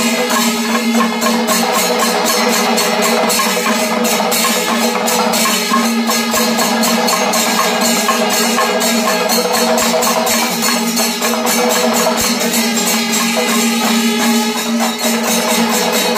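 Kerala temple percussion ensemble playing kalashakottu, the fast closing climax of the drumming: dense rapid drum strokes and jingling cymbal beats over a steady held tone.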